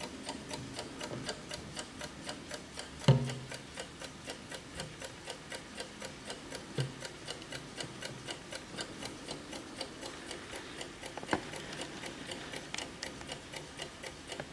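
Mechanical movement of a 1972 Bayard Donald Duck alarm clock ticking quickly and evenly. A loud knock comes about three seconds in, and softer knocks come later as the clock is handled.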